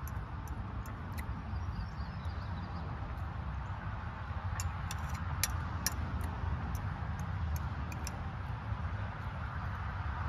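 Scattered light clicks of a fork against a bowl and small eating noises, over a steady low background rumble.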